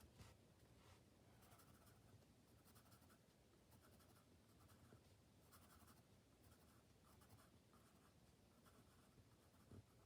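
Faint scratching of a pen drawing on paper: an irregular run of short strokes.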